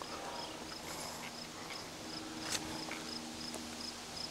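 Field crickets chirping steadily, a high chirp repeating about two or three times a second. A single faint click comes about two and a half seconds in.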